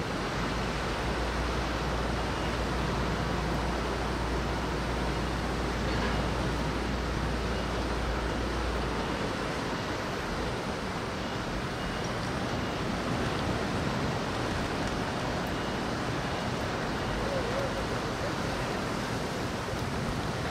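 Steady noise of wind and rain, with a low rumble from wind on the microphone that stops about nine seconds in.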